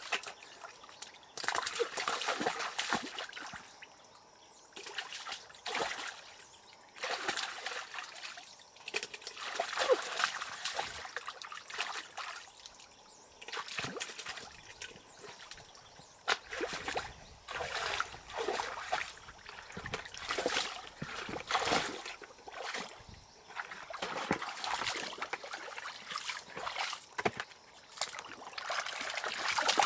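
Water splashing and trickling in irregular bursts a second or two long, with quieter gaps between.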